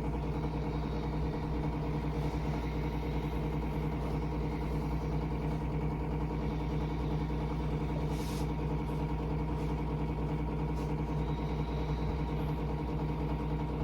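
A steady low hum that stays unchanged throughout.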